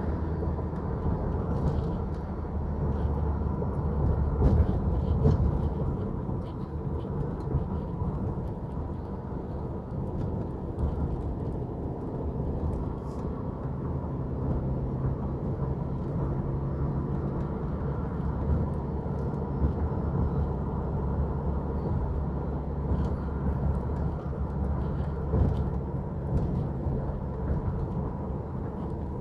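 Steady low rumble of road and engine noise inside a moving car's cabin as it drives along a concrete city road.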